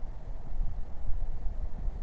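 Uneven low rumble of wind buffeting the camera's microphone.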